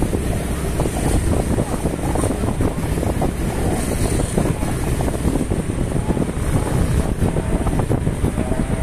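Wind buffeting the microphone over the steady noise of motorcycle and car traffic on the road.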